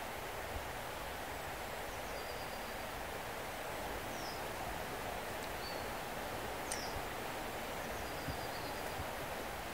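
Steady rushing of a river, with a handful of faint, short, high bird chirps dropping in pitch spread through it.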